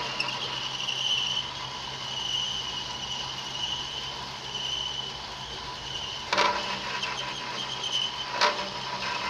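Traub A32 cam-type automatic lathe running, its form tool cutting into the turning bar stock under a flood of coolant: a steady machine hum with a wavering high whine and the hiss and splash of coolant. Two sharp clicks come about six and eight and a half seconds in.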